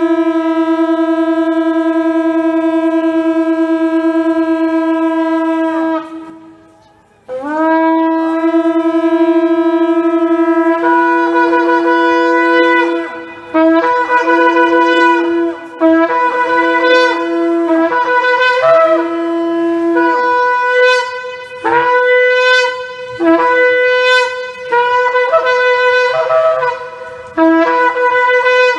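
Shofar blown in long held blasts: one long steady note, a brief pause for breath about six seconds in, and a second long note. Then comes a run of short blasts, roughly one a second, that break between a lower and a higher note.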